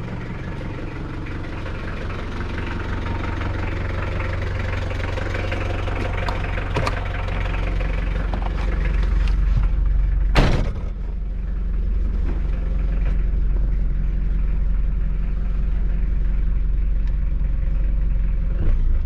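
Rebuilt Mitsubishi L200's 4D65 four-cylinder diesel engine running steadily, heard from the vehicle, slowly growing louder over the first half. A short, sharp noise cuts in about ten seconds in.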